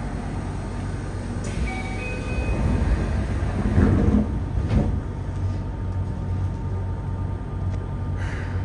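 Subway car doors closing at a station: a short chime, then the sliding doors shut with a thump about four seconds in. The standing car hums steadily.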